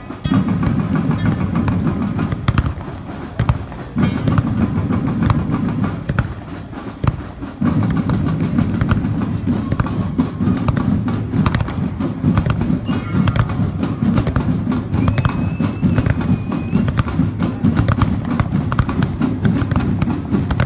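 Loud music with drums and percussion, full of sharp cracks, dropping away briefly twice in the first half.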